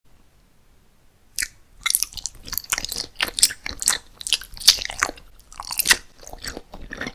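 A person biting and chewing crunchy food, a dense run of crisp crunches that starts about a second and a half in.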